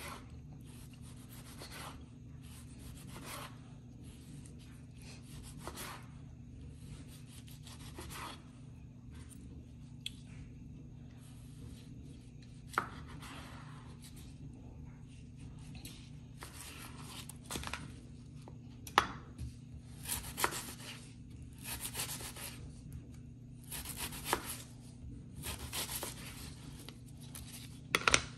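Kitchen knife cutting vegetables on a cutting board: single strokes, a few seconds apart at first and coming faster in the second half, with a sharp cut near the end. A steady low hum sits underneath.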